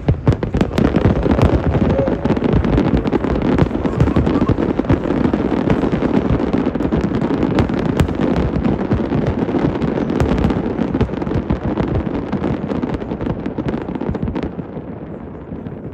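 Fireworks display: a dense barrage of rapid bangs and crackling, loud throughout and dying away near the end.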